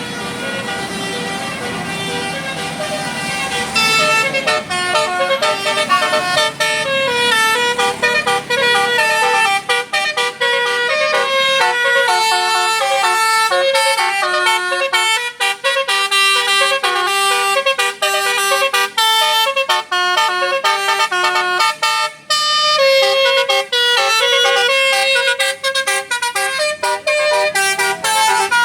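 A bus's multi-tone 'telolet' air horn playing a melody of quick stepped notes, loud from about four seconds in, with a brief break a little past twenty-two seconds.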